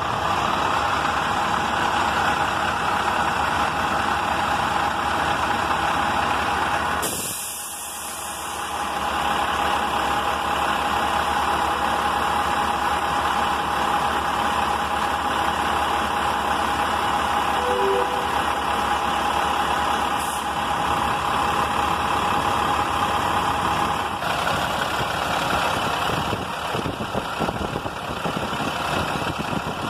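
International truck engine idling with its belt-driven A/C compressor running: a steady running noise with a thin, steady high whine over it. The sound briefly drops about seven seconds in and changes slightly about twenty-four seconds in.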